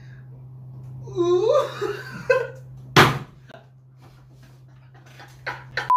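A young man's high laughter and squeals, the pitch swooping up and down, about a second in, then a single sharp slap about three seconds in, over a steady low hum.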